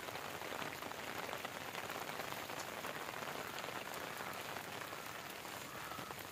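Steady rain falling: an even hiss made of many fine drop ticks.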